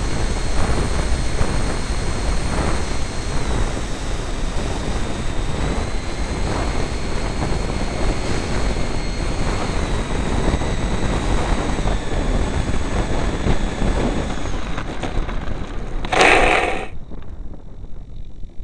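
Twin 70 mm electric ducted fans of an RC F-22 jet heard from an onboard camera: a high whine that steps up and down in pitch with throttle, over heavy wind rush on the microphone. The whine stops about fifteen seconds in, and about a second later a loud jolt lasting under a second comes as the jet touches down on the runway.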